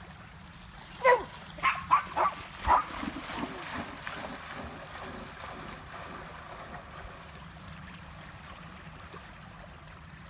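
Dog barking four or five times in quick succession, each bark short and falling in pitch, followed by the steady wash of small waves lapping at the shore.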